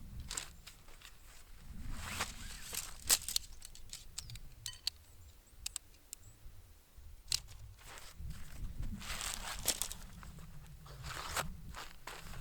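Footsteps crunching in packed snow, in irregular clusters with a few sharp clicks between them.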